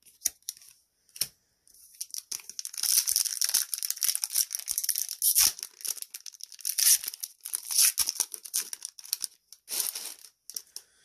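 A trading card booster pack wrapper being torn open and crinkled. A few sharp clicks come at the start, then dense crackling runs from about two seconds in until near the end.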